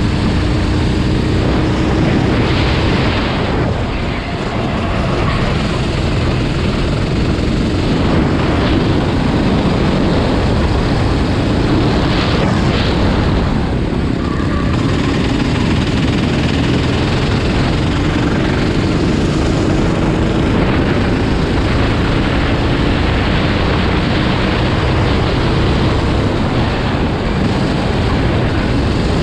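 Loud, steady engine noise from racing vehicles, with one engine's tone slowly rising in pitch now and then.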